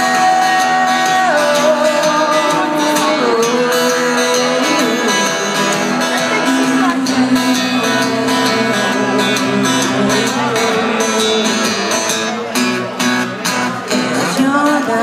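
Live acoustic guitar playing with a woman singing long held notes, some gliding in pitch.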